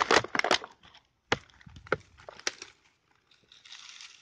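Dry twigs, leaves and plastic litter crackling and snapping as they are handled in undergrowth: dense crackling for the first half-second, then three separate sharp snaps and a soft rustle near the end.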